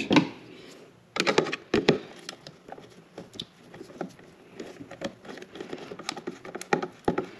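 Irregular clicks, taps and scrapes of hand tool work on a metal electrical box: a screwdriver is picked up off the bench and turns a terminal screw down onto a heavy copper wire, with a cluster of knocks about a second in.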